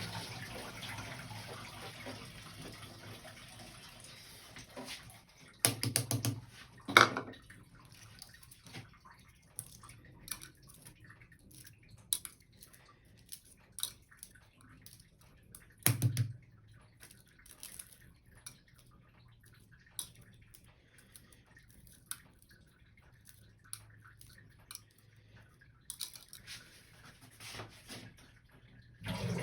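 Water running from a kitchen tap, tapering off over the first few seconds, followed by scattered clicks and knocks of kitchenware being handled, with a few louder knocks about six, seven and sixteen seconds in, and water-like noise again near the end.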